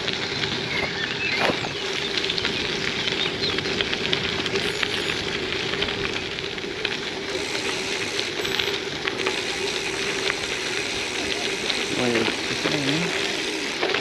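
Gravel bike tyres rolling on a damp surface, giving a steady crackling hiss with a faint steady hum under it. Faint voices come in near the end.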